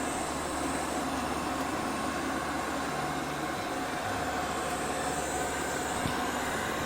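iMartine C900 robot vacuum cleaner running, a steady whirring rush with a low motor hum that shifts in pitch now and then, and a light knock about six seconds in.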